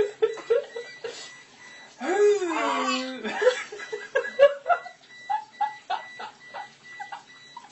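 A man laughing hard in quick repeated bursts, with a long, falling vocal sound about two seconds in.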